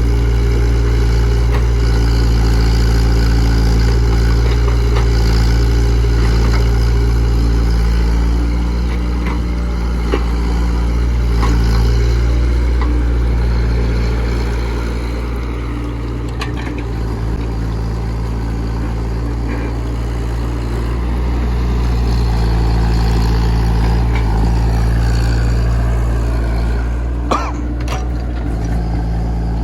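Komatsu PC68 excavator's diesel engine running steadily as the machine works, its load easing off about halfway through and building again, with one sharp knock near the end.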